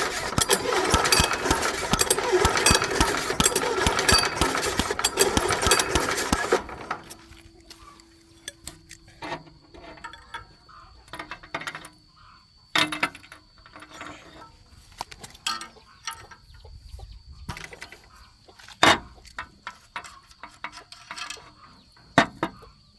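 Single-cylinder 173F diesel engine of a mini tractor running with a rapid, loud pulse for about six and a half seconds, then stopping suddenly. Scattered knocks and clicks follow.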